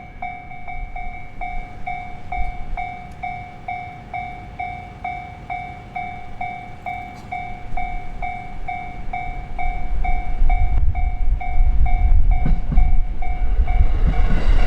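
Japanese railway level-crossing alarm ringing its electronic 'kan-kan' chime, two tones struck together about three times a second. Over the last few seconds the deep rumble of an approaching JR Nanbu Line train grows underneath it.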